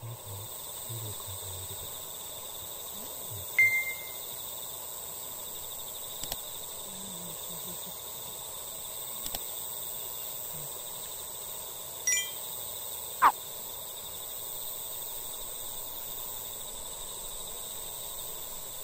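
Evening insect chorus: a steady, unbroken high trill. A few short, bright high notes cut through it, once about three and a half seconds in, a pair around twelve seconds, and a quick falling note just after.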